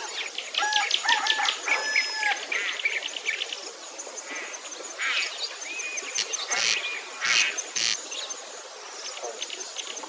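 A mix of wetland birds calling over one another: rapid series of short chirps in the first few seconds, then several louder calls between about five and eight seconds in.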